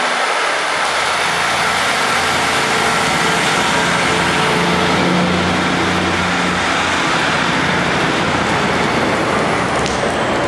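Class 150 Sprinter diesel multiple unit pulling out of a platform, its underfloor Cummins diesel engines running under power with a steady high whine above the engine note. The sound changes abruptly near the end.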